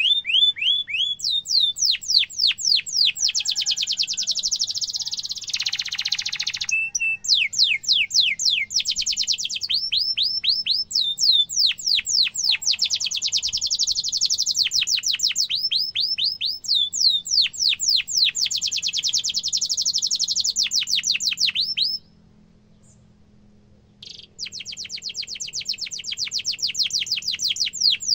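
Domestic canary singing: long, rapid trills and rolls of fast, repeated, downward-sweeping notes. A break of about two seconds comes about three-quarters of the way through, then the song starts again.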